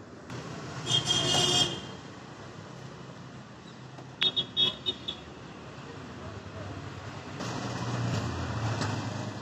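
Street traffic: a vehicle horn honks once about a second in, several short high toots follow near the middle, and a vehicle passes with a rising rumble near the end.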